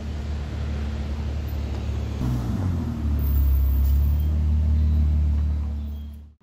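Ferrari 812 Superfast's V12 engine running at low revs as the car pulls away, with a low steady rumble. The pitch steps about two seconds in, and the engine grows louder about a second later before fading out.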